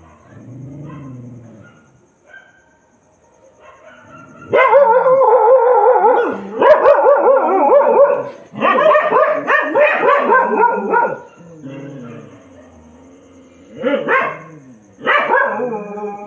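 Dogs howling and wailing. Faint at first, then loud, long wavering howls from about four seconds in to about eleven, then two shorter howls near the end.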